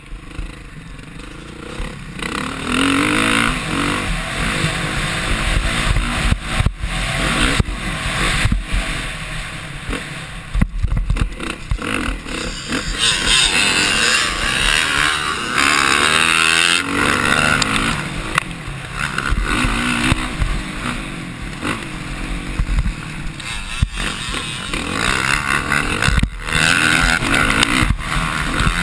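Dirt bike engine revving up and down as it is ridden hard around a motocross track, heard from a helmet-mounted camera with wind rushing past and frequent knocks as the bike hits ruts and bumps.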